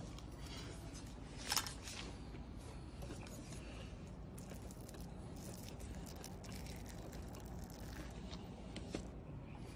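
Close-up eating and serving sounds: a crisp crunch about a second and a half in, then a spoon squishing and scraping softly through a thick, saucy dish, with a few faint clicks.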